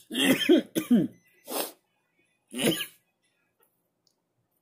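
A man coughing after a cannabis dab hit that he says burned his throat: a quick run of coughs in the first second, a breathy exhale, and one more cough a little past the middle.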